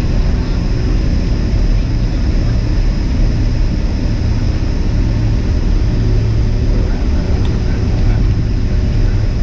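Boeing 767 jet engines and airflow heard from inside the passenger cabin: a loud, steady low roar with a faint high whine over it.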